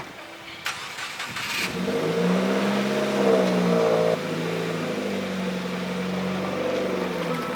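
Subaru WRX's turbocharged flat-four engine accelerating on a test drive, its pitch rising, then dropping suddenly about four seconds in and settling to a steady run. A short hiss comes about a second in, before the engine note climbs.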